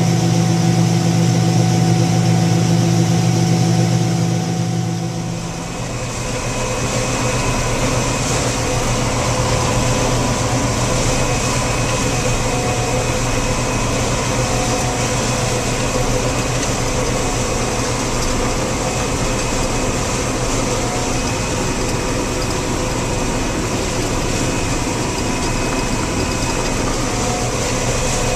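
A vehicle engine running steadily, heard from inside an enclosed cab with a fan-like hiss. About five and a half seconds in the sound dips briefly and changes to a different steady running note.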